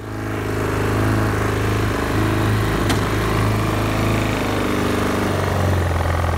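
A 250cc ATV engine running while the quad is ridden. The engine note is steady and shifts a little in pitch.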